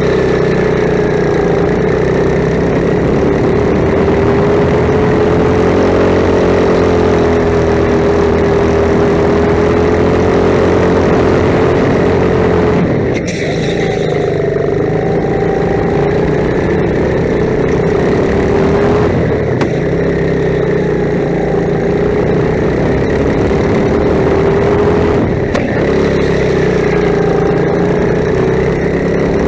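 Kart engine running hard under the seat, loud and steady, its note dipping briefly three times, about six seconds apart, as the throttle is lifted for corners, then picking up again.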